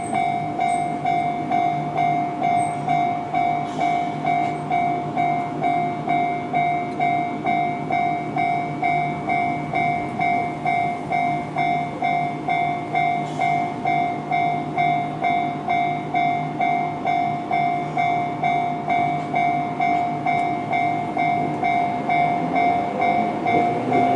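Japanese railway level-crossing warning bell, the electronic JR-standard tone, ringing steadily at about two strikes a second. Near the end a rising whine from an approaching tram joins in.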